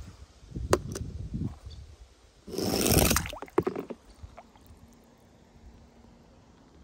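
Small die-cast toy car knocking and clattering on a plastic slide, then a brief splashing rush into water among plastic balls about two and a half seconds in, lasting under a second.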